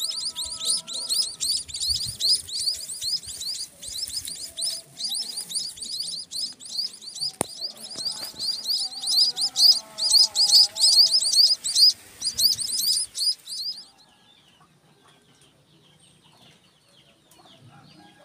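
Munia (bondol) nestlings begging: a fast, steady series of high, thin chirps, several a second, that stops abruptly about three-quarters of the way through. Fainter, lower bird calls sound underneath.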